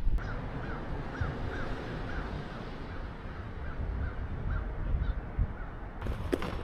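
A bird calling in a run of short calls, each rising and falling in pitch, about three a second at first, then slower and fainter, over a steady low rumble. A few sharp knocks come near the end.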